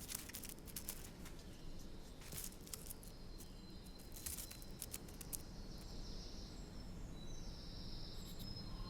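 Faint scratching and rustling, many small irregular clicks, as small animals scrabble over debris. In the last few seconds faint high tones creep in.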